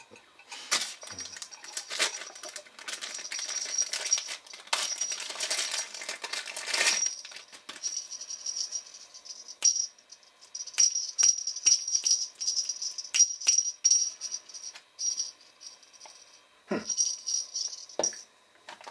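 Irregular rattling and clicking of small hard objects being shaken and handled, with a faint high ringing tone in stretches.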